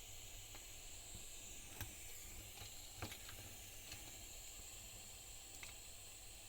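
Faint steady hiss with a few light clicks and taps from small tools being handled during soldering work on a headtorch circuit board.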